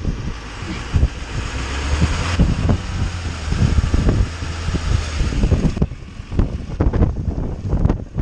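Duramax diesel pickup engine revving steadily while a tire spins in deep mud, with a hiss of slinging mud that stops about six seconds in: the truck is stuck. Gusts of wind buffet the microphone throughout.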